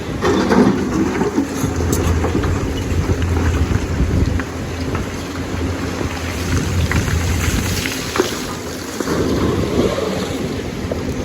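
Lonking excavator's diesel engine working under load, rising and falling, with occasional sharp knocks.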